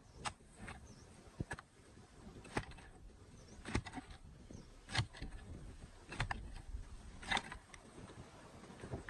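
Long-handled garden tool striking and scraping dry soil among the weeds: short sharp hits roughly once a second, unevenly spaced, with rustling between them.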